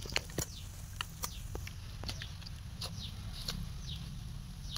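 A stick prodding and scraping into earth, loosening the soil around a mango seedling's roots, giving scattered short clicks and scrapes. Short high falling chirps sound a few times over a steady low rumble.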